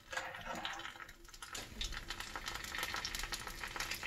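Funnel-cake batter dropping from a funnel into canola oil heated to 350°F in an electric skillet. The oil starts a steady sizzle full of fine crackles about a second and a half in.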